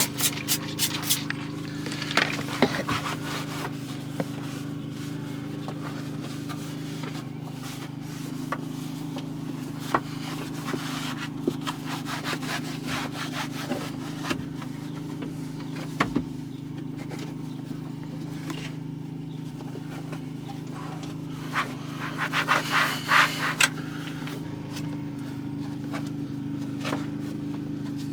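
Hand rubbing and wiping with an applicator while dressing the machine's surfaces: irregular scraping strokes and small clicks, busiest near the end. A steady low hum from a running motor sits underneath.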